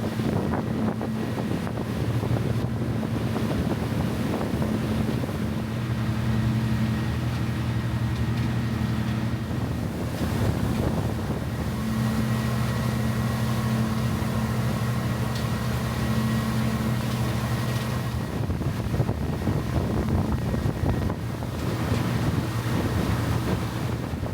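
A boat's engine running with a steady low hum, under wind buffeting the microphone and the rush of water against the hull.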